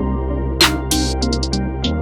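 Electronic background music with a steady bass line, held synth notes and a regular beat.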